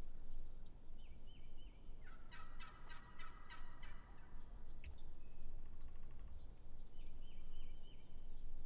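Osceola wild turkey gobbler gobbling: one rapid rattling gobble about two seconds in that lasts under two seconds, followed by a fainter rattle. A few short high, falling bird notes come before and after.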